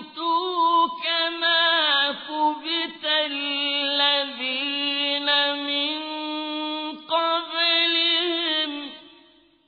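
A male reciter chanting the Quran in the melodic tajwid style, with long held notes and ornamented turns in the voice. The chanted phrase ends and fades about nine seconds in.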